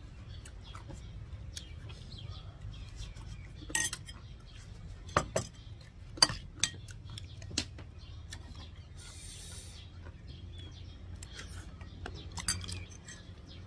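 Scattered clinks and taps of a small metal spoon against a dish, a dozen or so at uneven intervals, over a steady low hum.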